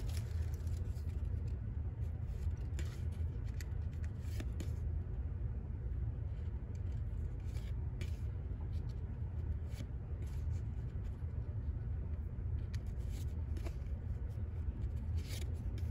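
Baseball trading cards being flipped through one at a time in the hand, with soft slides and light ticks of card stock. A steady low hum runs underneath.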